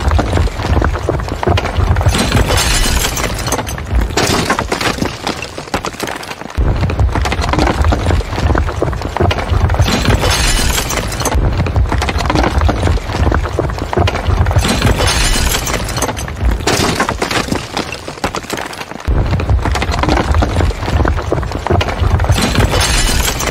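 Bridge-collapse sound effect: a continuous deep rumble under repeated surges of crashing, breaking and shattering debris.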